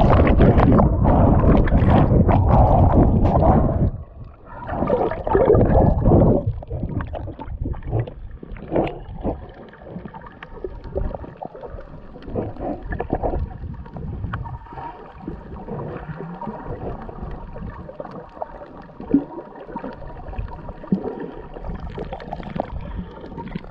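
Underwater sound through a GoPro housing: loud splashing and bubbling from fin kicks at the surface for the first four seconds and again briefly about five seconds in, then a quieter underwater hiss with scattered clicks and crackles.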